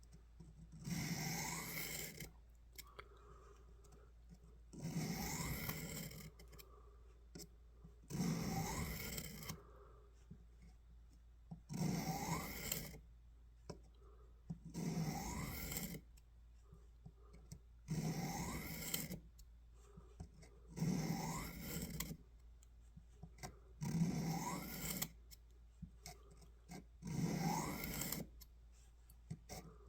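Knife blade being drawn along the ceramic honing rod of a Work Sharp Pocket Knife Sharpener: nine slow, even strokes about three seconds apart. Each stroke is a scrape with a faint rising tone.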